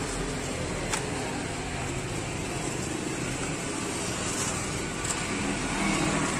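Steady street background noise with a low traffic hum, and one sharp light click about a second in.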